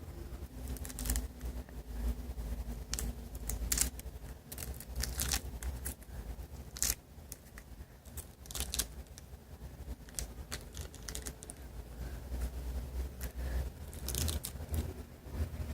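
Irregular short crackles, crinkles and scrapes of something being handled, over a steady low hum.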